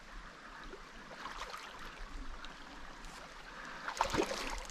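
River current rippling and rushing over a shallow, stony riffle, a steady wash of water noise. A brief, louder burst of sound about four seconds in.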